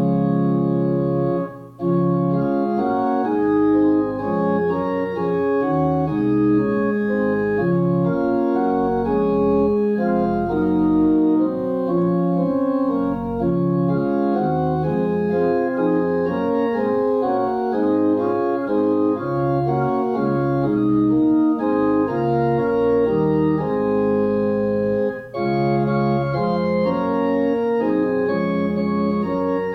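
Church organ playing sustained chords that change in a slow, steady succession, with two brief breaks between phrases, near the start and about twenty-five seconds in.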